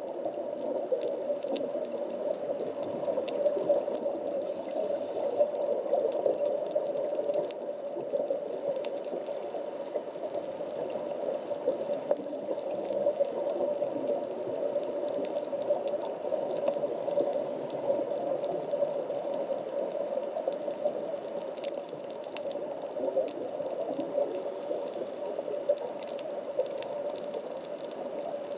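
Underwater ambient sound of the sea at about 15 m depth, picked up through a camera's waterproof housing: a steady rushing hiss with faint scattered clicks.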